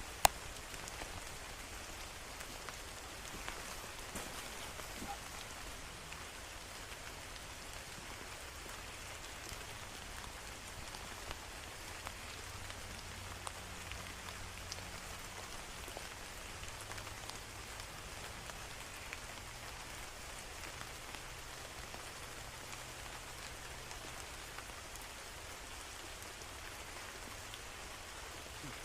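Steady rain falling, an even hiss with many single drops ticking; one sharp click just after the start.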